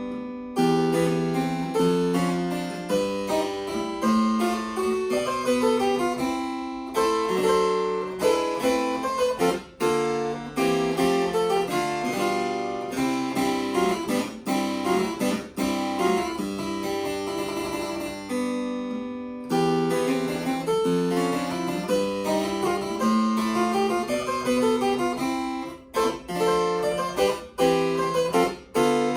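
Solo harpsichord music, a dense run of quickly changing plucked notes.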